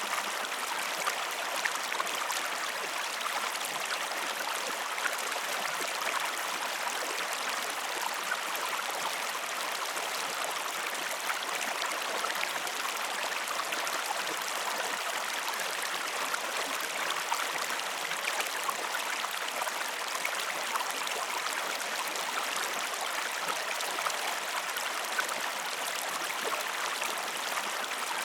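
Flowing water running steadily, with many small splashes and drips through it.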